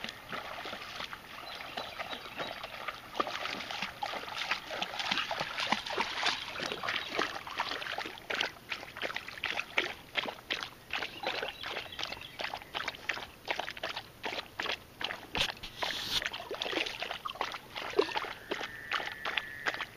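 A Weimaraner lapping river water: wet laps and slurps, splashier at first, then a quick, even run of laps from about eight seconds in.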